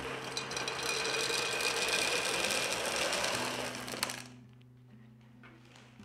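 Expanded clay pebbles poured into a glass vase: a dense, steady rattling of pebbles against the glass and each other that stops about four seconds in. Soft background music underneath.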